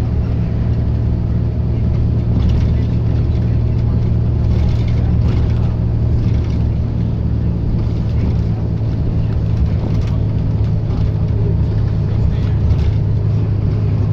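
Diesel engine of a preserved bus running at a steady speed, its pitch holding level.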